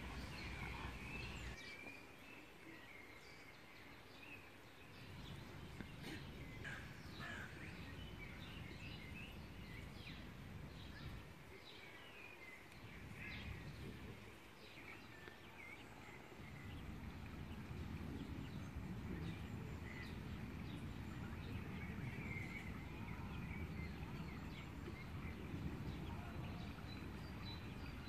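Small birds singing and calling, a scatter of short chirps and trills throughout, over a low rumble that fades out briefly twice.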